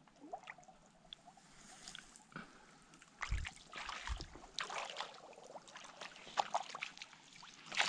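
Shallow muddy puddle water sloshing and splashing as a small cast net is dragged through it. Faint at first, then a dull thump about three seconds in, followed by a run of short splashes.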